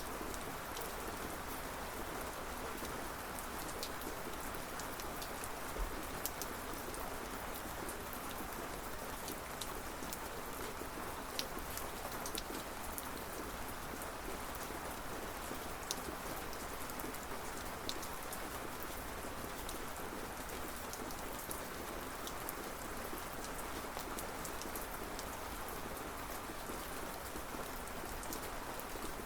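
Steady rainfall, an even hiss with scattered sharp drops ticking on a surface.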